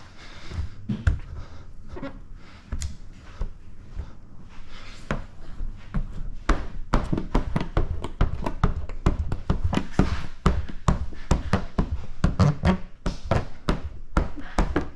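A hand squeegee working wet paint protection film on a truck's sheet-metal hood, pushing out excess slip solution: an irregular run of short taps and thunks, sparse at first and coming several a second from about six seconds in.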